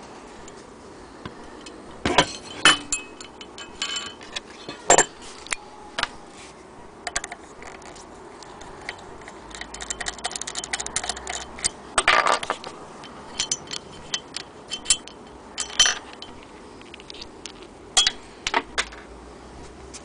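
A hand tool and small metal parts clinking, tapping and knocking while a cast-iron sewing-machine hand crank is worked on, in scattered sharp clicks with a denser run of rattling around the middle.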